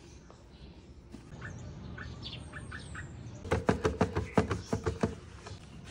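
A cloth wiped rapidly back and forth over a plastic desk telephone, a quick run of scrubbing strokes in the second half. Before it, a few short bird chirps.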